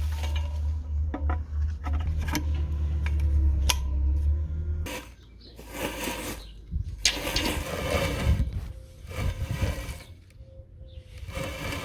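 Spring-steel tines of a lawn rake scraping through leaves and grass in repeated strokes, each about a second long, starting about five seconds in. Before that, a steady low hum with scattered clicks.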